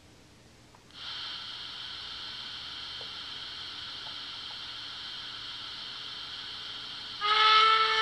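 Sound decoder of a Märklin BR 44 model steam locomotive playing its effects through the model's small speaker: a steady steam hiss comes on about a second in. Near the end a louder steam whistle starts and holds a steady pitch.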